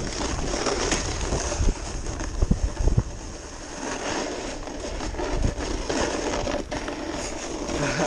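Snowboard scraping and chattering over icy, hard-packed groomed snow, a continuous rough hiss with a few sharp knocks about two to three seconds in.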